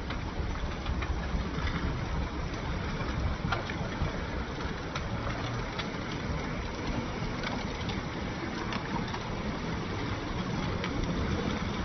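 Seawater surging and foaming among coastal rocks: a steady rushing wash with a deep rumble and a few faint ticks scattered through it.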